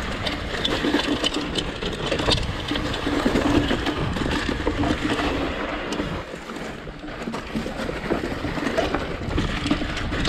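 Mountain bike descending a dirt trail, recorded on the ride: steady wind rush over the microphone and tyres rolling on dirt, with frequent small clicks and rattles from the bike.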